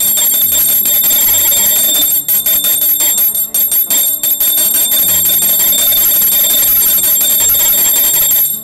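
Brass pooja bell rung rapidly and without a break for the aarti offering to the Pongal pots, ringing loudly, then stopping suddenly near the end.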